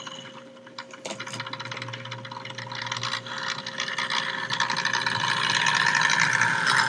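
HO scale model train running on the layout track, its small electric motor whirring and wheels rattling on the rails, getting steadily louder as it approaches.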